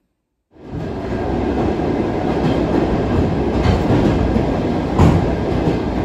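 Passenger train running on rails, heard from inside the carriage: a steady noise of the wheels on the track that starts after half a second of silence, with a sharp knock about five seconds in.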